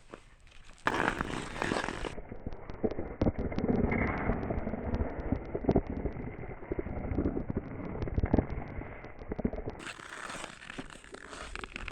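Ice skates gliding over thin black ice, with a dense run of sharp crackles and pops from the ice.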